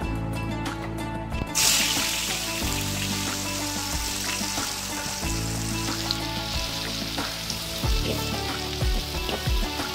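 Sliced shallots sizzling in hot oil in a wok, a steady frying hiss that starts suddenly about a second and a half in.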